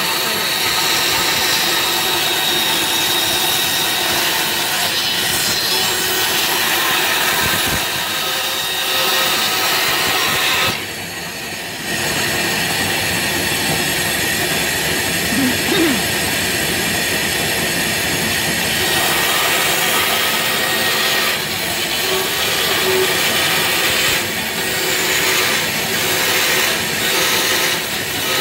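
Band saw running and cutting a curve through a thick stack of plywood, a steady loud saw noise. The level drops briefly about eleven seconds in, then the cut carries on.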